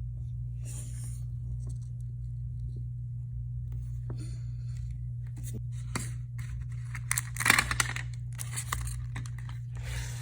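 Rustling and clicking of toy packaging and small plastic toy pieces being handled, irregular and busiest about seven and a half seconds in, over a steady low electrical hum.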